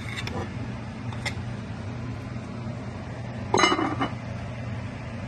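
A lid clinks and clatters against a metal cooking pot in one short burst a little over three and a half seconds in, after a couple of light clicks, over a steady low hum.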